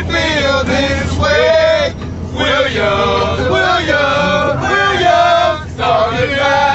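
Several boys singing together, loud and off-key, over a steady low hum.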